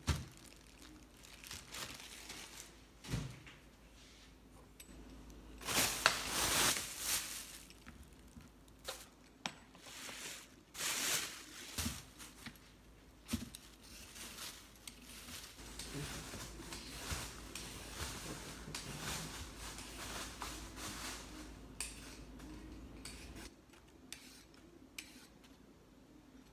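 Kitchen handling sounds: clinks and knocks of utensils and dishes. There is a louder noisy stretch of about a second and a half around six seconds in, and a shorter one near eleven seconds.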